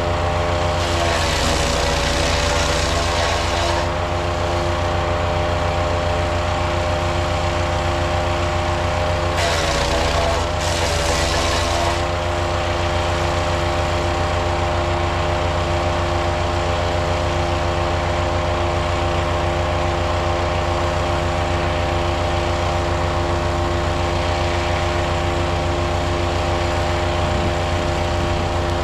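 Powerfist 420cc wood chipper's single-cylinder gas engine running steadily at speed. Twice, about a second in and again about ten seconds in, a few seconds of hissing grind come in as the engine briefly dips under load: brush being fed through and chipped.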